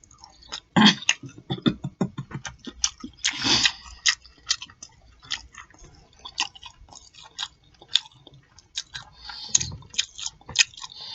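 Close-miked chewing and lip smacking: a dense, irregular run of wet clicks and smacks, several a second, with a couple of louder bites.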